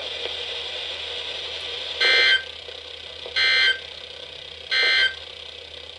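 NOAA Weather Radio's SAME end-of-message data bursts closing a severe thunderstorm warning: three short, identical buzzy digital bursts a little over a second apart, with faint radio hiss before the first.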